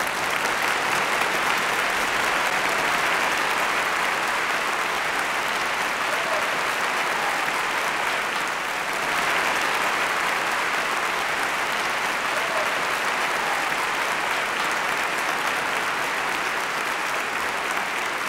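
A church congregation applauding steadily, with a brief dip a little before halfway.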